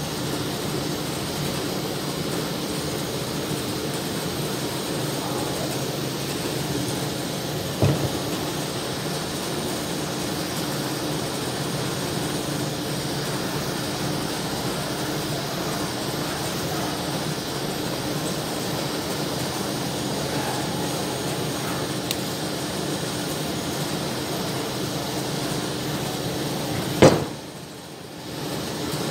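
Handheld butane canister torch flame hissing steadily while it scorches a wooden lantern frame. A single knock about eight seconds in, and a sharp click near the end, after which the hiss drops away for a moment and then returns.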